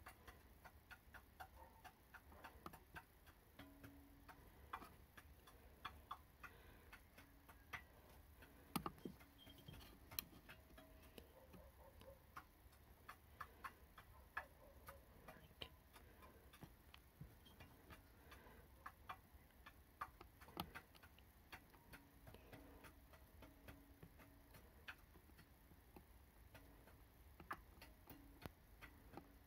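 Near silence with faint, irregular small clicks and ticks over a low steady hum, one click about nine seconds in a little louder than the rest.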